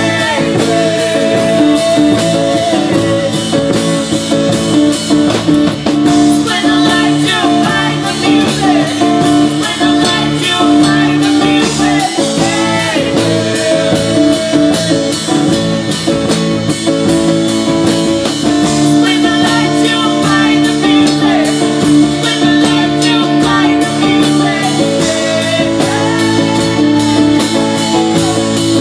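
Live band playing: a woman singing over a strummed acoustic guitar, electric bass and a second guitar, with a steady beat.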